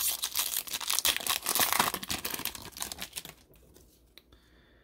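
Shiny foil wrapper of a 2002 Donruss baseball card pack being torn open and crinkled by hand: a dense crackling rustle for about three seconds that then dies away.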